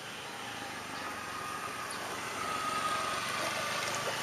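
A motor vehicle's engine running as it passes, growing louder to about three seconds in and then easing off.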